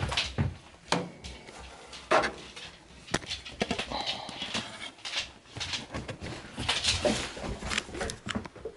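Handling noise close to the microphone: irregular clicks, knocks and rustles as a DVD disc and plastic DVD cases are picked up and moved about.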